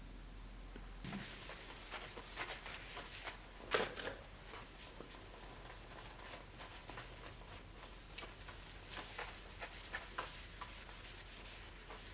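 Faint rubbing and light scraping on a Bowie knife handle, in uneven strokes with small clicks, starting about a second in, and one sharper knock about four seconds in.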